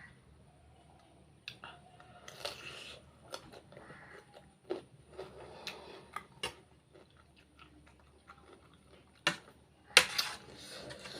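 Close-up eating sounds: chewing and mouth noises of fried rice and noodles, with a spoon clicking and scraping on a plate; the sharpest clinks come near the end.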